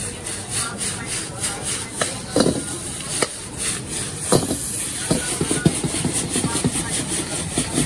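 A metal ladle scraping and knocking against a carbon-steel wok as rice noodles are tossed and stir-fried over a gas burner, with a steady sizzle underneath. The strikes come faster in the second half.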